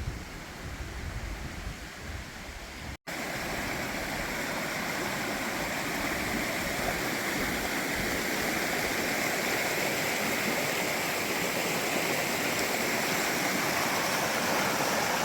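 Mountain brook rushing and babbling steadily over rocks. It is softer at first with a low wind rumble, then after a short break about three seconds in it is louder and closer.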